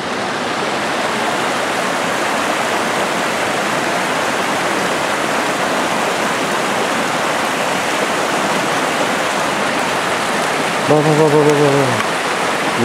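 Rocky forest creek rushing and splashing over boulders, a steady rush of water. A man's voice is heard briefly about eleven seconds in.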